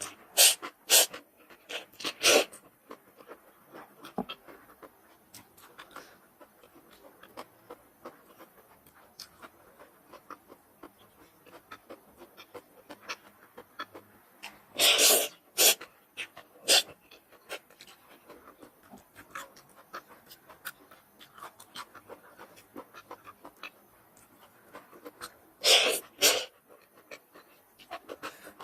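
A person eating spicy noodles: small chewing clicks throughout, broken by three clusters of loud, short breathy bursts, at the start, about 15 seconds in and about 26 seconds in.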